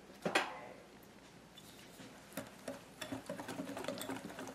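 Wire whisk beating a thin cornmeal and milk batter in a glass bowl, its tines clicking and scraping quickly against the glass. The clicking starts about a second and a half in and grows louder, after a single knock near the start.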